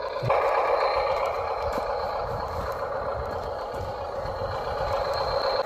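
Steady whirring whine of a radio-controlled construction model's electric motors running. It starts a moment in and stops near the end.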